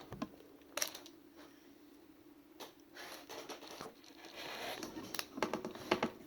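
Small plastic parts and a ball bearing being handled and pushed into place on an RC truck's rear axle: scraping with a few sharp clicks, several in quick succession near the end.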